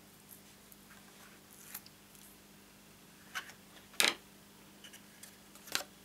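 Cardstock being handled and folded by hand: a few short rustles and light taps, the sharpest one about four seconds in, with a faint steady hum underneath.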